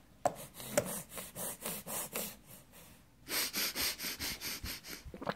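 A baby making her huffing noise: a string of short, breathy huffs of air. They come irregularly at first, then quicken into a fast run of about five a second just past the middle.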